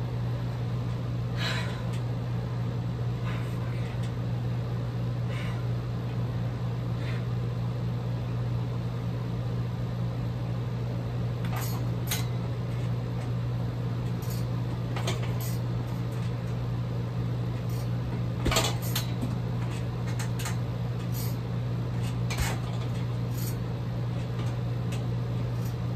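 Steady low hum in a small room, with scattered faint knocks and taps and one louder thump about two-thirds of the way through.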